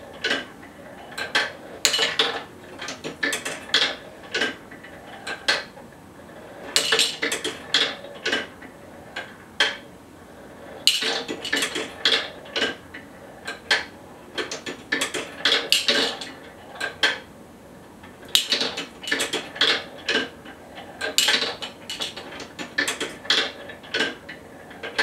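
Steel marbles on a wooden multi-rail escapement marble run: the escapement gates click as they release marbles one at a time, and the marbles roll and clack down the wooden rails and into the collection tray. Sharp clicks and clacks come in irregular clusters about every second, with no let-up.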